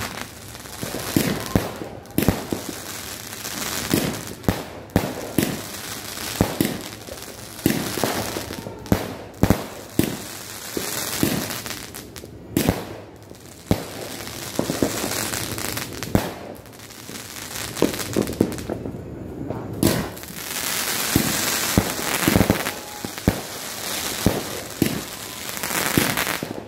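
Multi-shot consumer fireworks cake firing in rapid succession: sharp reports of shots launching and bursting, about one a second, over a steady crackle of glittering stars, with a brief lull a little past the middle.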